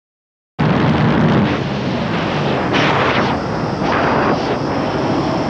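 Bajaj Pulsar N150's 150cc air-cooled single-cylinder engine running hard at high revs at highway speed, mixed with wind rushing over the microphone. It starts abruptly about half a second in, and grows louder in two brief swells about three and four seconds in.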